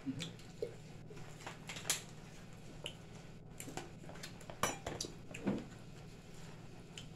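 Scattered light clicks and scrapes of forks and spoons against paper food boxes as people eat, over a steady low hum.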